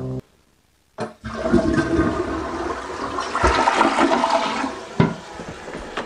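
Toilet flush water gushing out of a drain pipe and splashing onto the mulch in a worm-composting bin. It starts suddenly about a second in, is loudest midway, and has a sharp knock about five seconds in.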